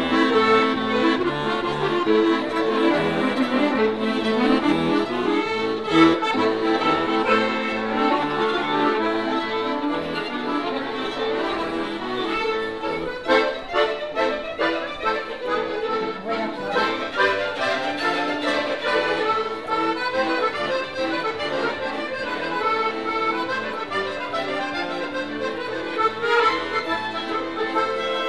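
Violin and accordion duo playing a tune live.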